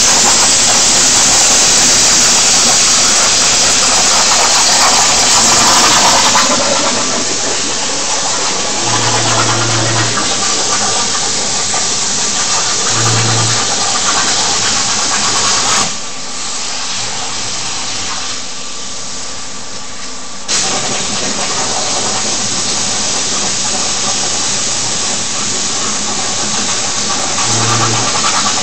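CNC plasma table's torch cutting: a loud, steady hiss. It cuts out a little past halfway and starts again suddenly about five seconds later. Brief low hums come now and then.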